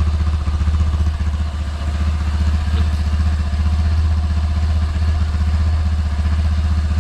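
Sym Wolf 125cc single-cylinder four-stroke motorcycle engine idling steadily, a low, rapid exhaust pulse from an exhaust with the catalytic converter removed and no end tip.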